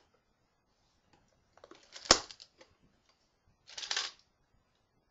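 Coins being handled: a few light clicks and one sharp clack about two seconds in, then a short scraping rustle near four seconds.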